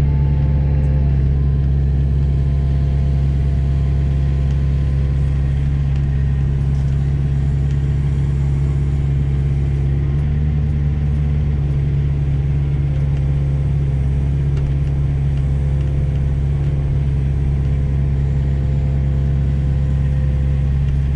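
Diesel engine of heavy yard machinery running steadily at constant speed, a deep even drone without revving or pauses.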